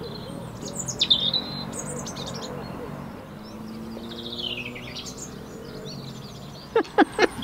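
Small songbirds chirping and trilling, including a falling trill midway, with a few short, louder sharp sounds just before the end.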